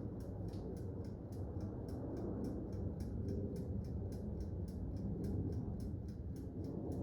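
Toaster oven's wind-up dial timer ticking evenly, about three to four ticks a second, as it counts down the cooking time, over a steady low hum from the running oven.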